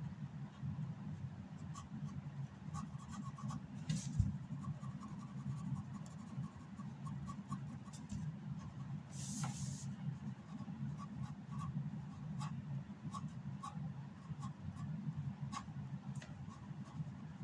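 Fine-tip ink pen scratching and tapping on paper in many short strokes, with a knock about four seconds in and a longer scratch around the middle, over a steady low hum.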